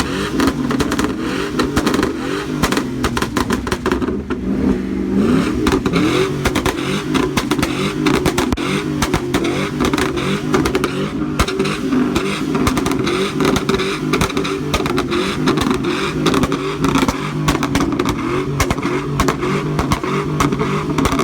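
Truck engine revving over and over, with a rapid, continuous crackle of exhaust pops from a flamethrower exhaust kit.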